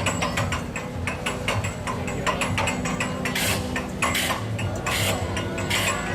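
Mechanical noise-making contraption clattering and ratcheting, with fast clicking over a low steady drone. In the second half come four evenly spaced hissing bursts.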